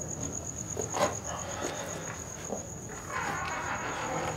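Cricket chirping in a steady, fast, even pulse on one high note, with a soft rustle near the end.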